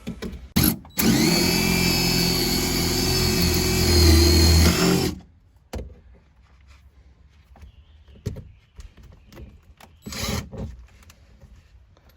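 Handheld power drill triggered in two short blips, then run steadily for about four seconds before stopping abruptly. Scattered light knocks and clicks of handling follow.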